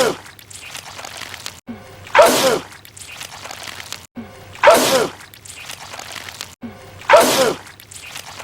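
A man sneezing loudly, the same sneeze looped over and over about every two and a half seconds: the end of one right at the start, then three full sneezes, each a sudden burst that falls in pitch and dies within half a second.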